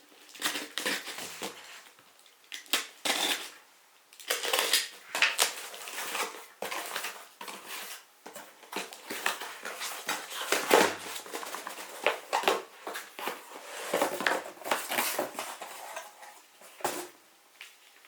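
Packaging being unboxed by hand: rustling and crinkling in irregular bursts, with sharp clicks and light knocks.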